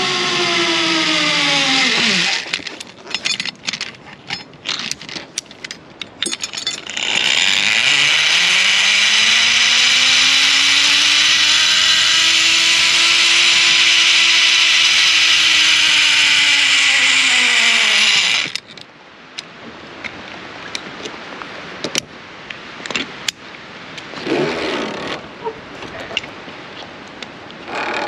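Zipline trolley pulley rolling along a steel cable: a loud hiss and whine whose pitch rises as the rider gains speed and falls as it slows, for about eleven seconds before it stops abruptly. Before it, a falling whine dies away, followed by sharp metallic clicks of carabiners and trolley being clipped on. Scattered clicks and knocks of hooks being handled follow the ride.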